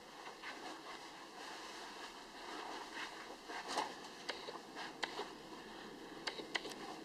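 Faint rustling and handling noise from a handheld camera being carried while walking, with a few small sharp clicks in the second half.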